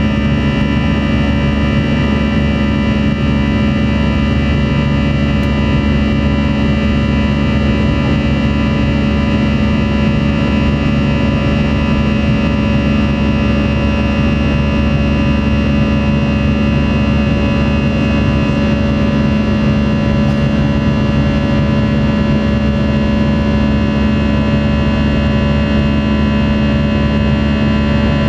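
Cabin noise of an Airbus A321 in flight, heard from a window seat over the wing: its jet engines and the rushing air make a steady drone, with a constant low hum and several held tones.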